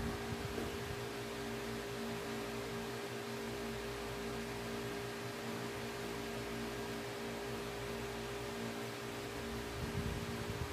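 Steady machine hum with an even hiss, like a running kitchen fan or appliance, with faint handling noise about ten seconds in.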